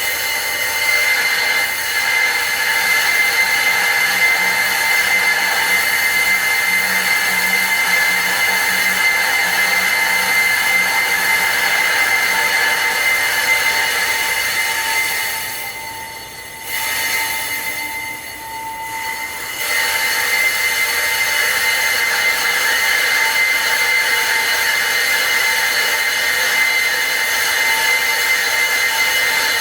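A workshop machine running steadily with a high-pitched whine, its level dropping away twice about halfway through before it picks up again.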